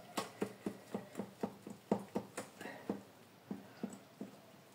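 Hand whisk beating cake batter in a glass bowl, tapping against the glass in a steady rhythm of about four clicks a second, with a short break about three seconds in.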